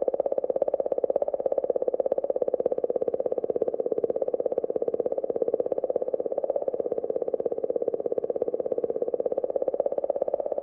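Sonified space-plasma data presented as the "song" of Comet 67P/Churyumov–Gerasimenko, the Rosetta magnetometer recording sped up into hearing range. It is a steady, rapid clicking pulse with a warbling, mid-pitched hum that wavers slightly in pitch.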